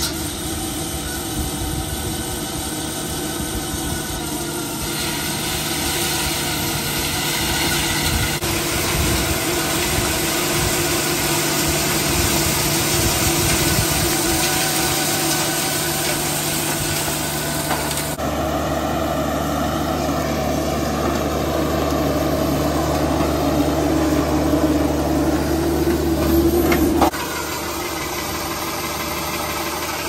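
Kubota SCL1000 stand-on track loader's diesel engine running steadily under load while its hydraulic cover-up attachment spins and throws dirt back into a trench. The sound changes abruptly three times, about 8, 18 and 27 seconds in.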